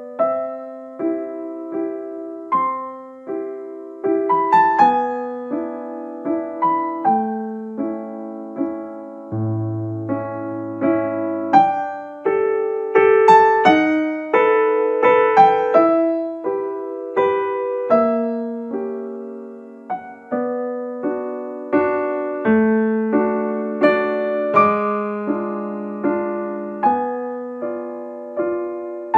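Background piano music: a melody of single struck notes over lower chords, each note fading after it is played.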